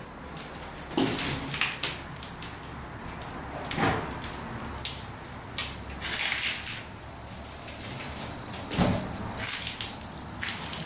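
Irregular footsteps crunching over debris on a hard floor, each step a short crackle, some heavier than others.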